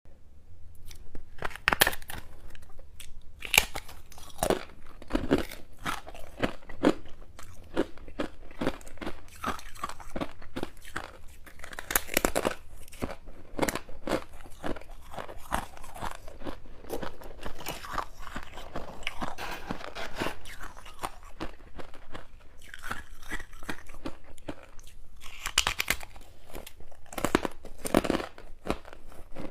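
Close-up biting and chewing of crunchy freezer frost: a dense, irregular run of crunches and crackles, with sharper bites here and there.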